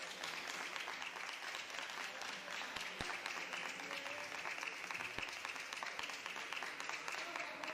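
Spectators' applause after a point in a table tennis match, many hands clapping steadily, with two sharp knocks about three and five seconds in.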